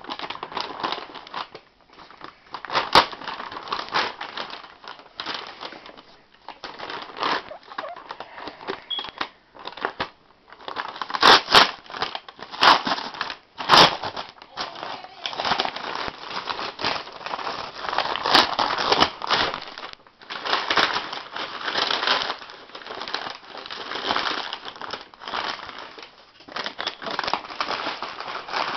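Packaging being unwrapped from new football boots: continuous crinkling and rustling as the wrapping is handled and crumpled, with a few sharp louder crackles.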